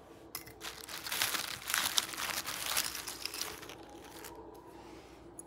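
Clear plastic zip-top bag of costume jewelry crinkling as hands rummage inside it. It is loudest in the middle and dies away about four seconds in.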